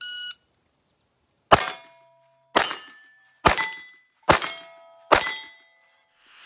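A shot-timer start beep, then five .22 rimfire pistol shots about a second apart, each followed by the ring of a struck steel target plate.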